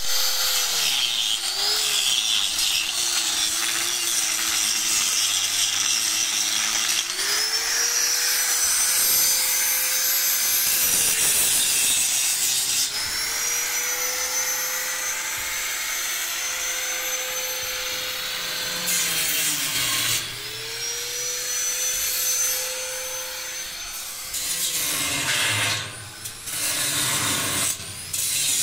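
Electric angle grinder grinding at the foot of a steel railing post, with harsh grinding noise throughout. Its motor whine rises as it is switched on, holds steady for a few seconds and winds down, three times in a row. Near the end the noise turns uneven and broken.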